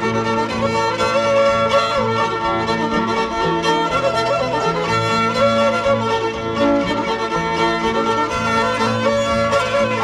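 Instrumental bluegrass fiddle tune: a fiddle carries the melody over a bluegrass band's banjo, guitar, mandolin and upright bass.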